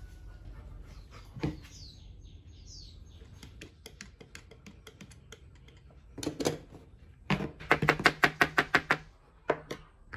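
Rapid run of sharp clicks and scrapes, about seven a second, from a snap-off utility knife trimming a hardened candle-wax patch on a plastic frame, after a few scattered taps and clicks.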